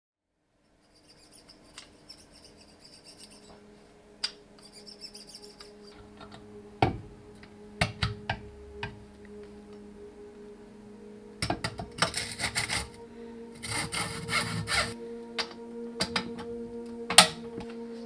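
Parts of a downhill bike frame and workstand being handled: scattered sharp clicks and knocks and two longer rubbing, scraping passages, over a low, steady music drone.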